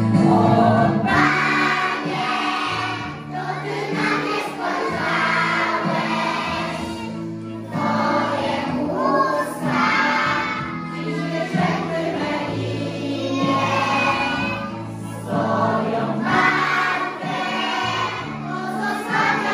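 A preschool children's choir singing together with a few women's voices, in long sung phrases over a steady instrumental accompaniment.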